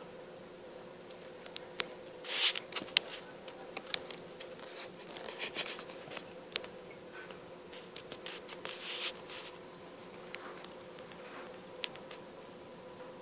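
Steady hum of aquarium equipment, with scattered sharp clicks and short crackling bursts, busiest in the first two thirds.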